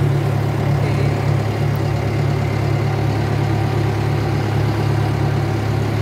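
Water taxi's engine running steadily, a low even drone heard from inside the boat's passenger cabin as it cruises.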